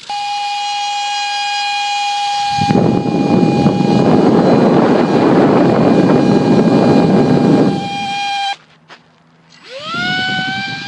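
Brushless electric ducted fan of a micro RC jet whining at a steady pitch, with a loud rushing hiss mixed in for several seconds in the middle. After a brief break near the end, the fan spools up with a sharply rising whine.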